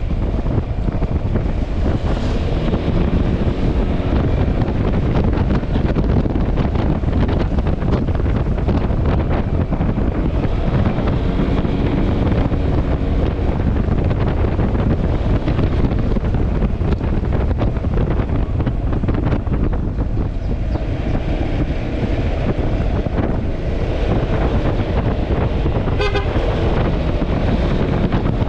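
Heavy wind buffeting on the microphone of a moving Yamaha Xmax scooter, over the running of its engine and road noise. A short horn toot sounds near the end.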